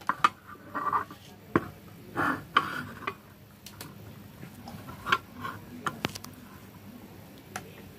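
Scattered light clicks and taps at irregular intervals, roughly a second apart, with soft handling noise between them.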